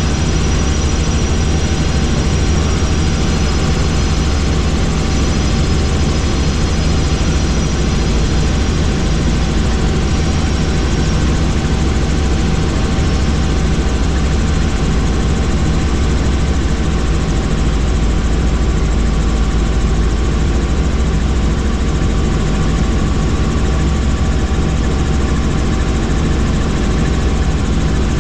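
Helicopter in flight: a loud, steady drone of rotor and engine. A faint high whine fades out about a third of the way through.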